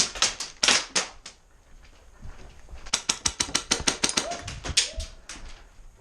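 Airsoft guns firing in quick strings of sharp cracks: a short string at the start, then a longer run of shots at about seven a second from about three seconds in.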